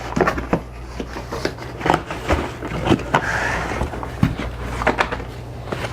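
Small boxes and packaging being handled and packed: irregular knocks, taps and scrapes, with a brief rustle about three seconds in, over a low steady hum.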